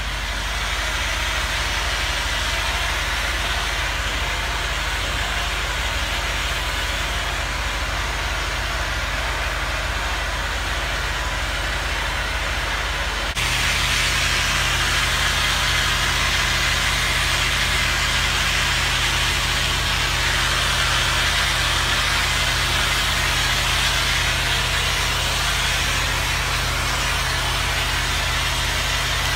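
Steady drone of a pressure washer's engine under the hiss of water spraying from a ball-valve rinse hose. Both step up abruptly, the hiss louder, about halfway through.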